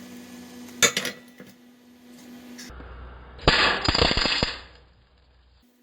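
Welding arc crackling and popping in a short burst of about a second, past the middle. A sharp click comes just before it, near the start.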